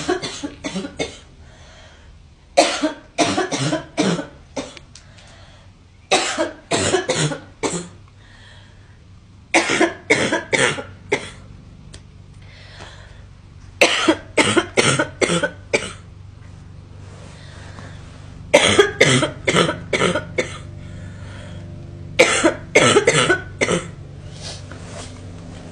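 A girl coughing in repeated fits of four to six quick, sharp coughs each, a fit every three to four seconds, with short pauses between.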